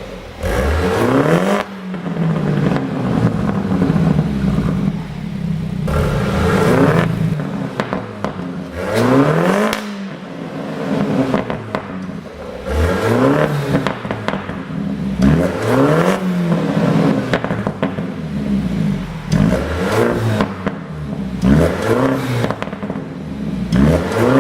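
2017 BMW 430i's turbocharged 2.0-litre four-cylinder engine being blipped again and again, revs rising and falling every couple of seconds. Exhaust pops and crackles come as the revs drop on the overrun, the effect of a pop-and-crackle tune.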